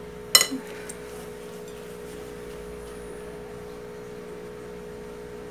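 A metal spoon clinks once against a plate about a third of a second in, with a short ringing tail. A steady hum runs underneath.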